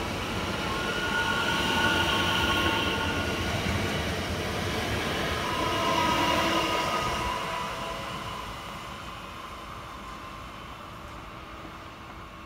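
DB Class 442 (Bombardier Talent 2) electric multiple unit running past, a rumble of wheels on rail with several high whining tones. It is loudest as the train goes by and fades steadily from about seven seconds in as it moves off down the line.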